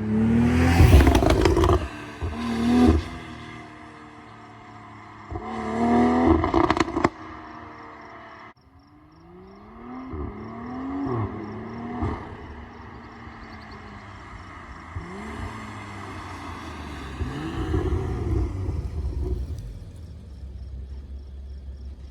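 BMW X3 M40i's turbocharged B58 inline-six, running an aggressive BM3 burble tune, revving in a series of blips, with crackles and pops from the exhaust as the revs fall. The loudest revs come at the start and about six seconds in, followed by a quick run of sharp cracks. The sound drops off suddenly just past eight seconds, and several lighter blips follow.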